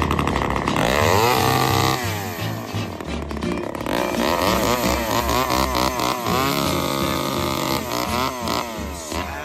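Poulan 306A two-stroke chainsaw being revved up and down over and over, its engine pitch swelling and falling in quick repeated surges.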